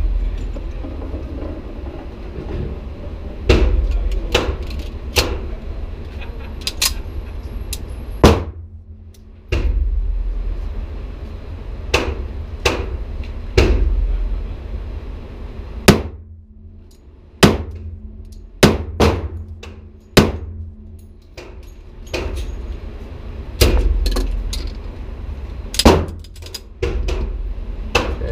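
Pistol shots on an indoor range, including a Metro Arms 1911 being fired: about twenty sharp shots in slow, irregular strings, each with a short echo, over a steady low rumble.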